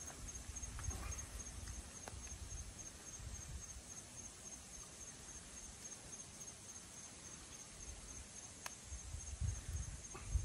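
Night insects chirping: a steady, rapid, high pulsing trill, with faint low rustling and an occasional small click underneath.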